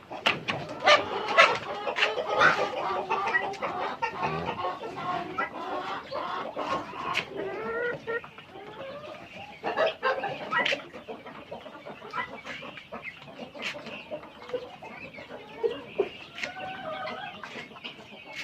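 A flock of Rainbow Rooster chickens clucking and calling over one another, with frequent sharp taps mixed in.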